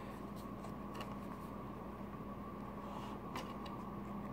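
A few faint, short metallic clicks from a Medeco camlock being handled, over a steady low hum.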